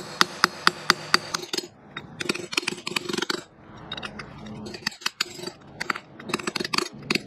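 Hammer tapping a steel pin punch wedged between the clutch centre nut and its tabbed lock washer, bending the washer's tabs back so the nut can be removed. It starts as a quick run of sharp metallic taps, about five a second, then goes on in scattered taps with pauses.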